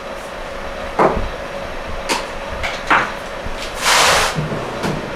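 Kitchen handling sounds: three light knocks about a second apart as things are set down, then a brief scraping rustle near the end.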